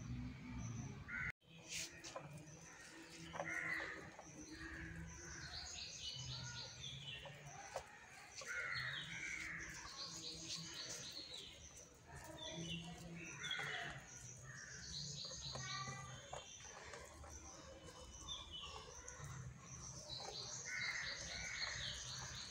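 Crows cawing with other birds chirping, faint, many short calls repeating throughout.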